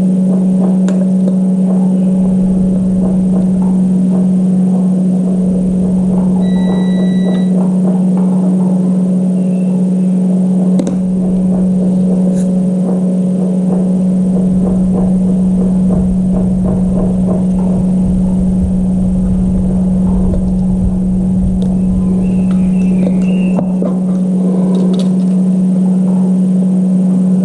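A loud, steady low-pitched hum that never changes pitch, over a rough rumble. A short, faint beep comes about six and a half seconds in.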